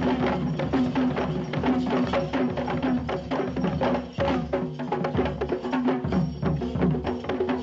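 Fast drumming for a Kandyan dance performance, many quick drum strokes over steady held pitched tones.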